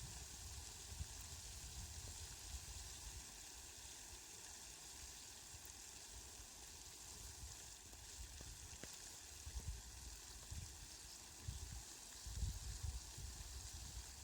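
Steady, faint rain hiss, with uneven low rumbles that grow stronger near the end.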